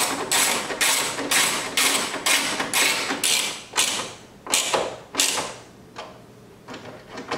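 Hand ratchet wrench clicking in short back-and-forth swings, about two a second, as it snugs down the screws of a carbon fiber trim panel; the clicking stops a little past five seconds in, with a few lighter clicks near the end.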